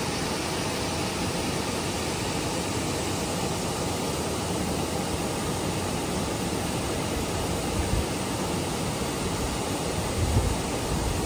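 Steady rush of water pouring out below a dam. A few low gusts of wind on the microphone come near the end.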